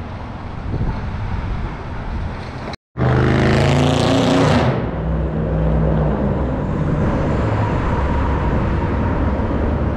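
City street traffic noise. About three seconds in, a car drives past close with engine and tyre noise that swells and fades, and a steady hum of traffic follows.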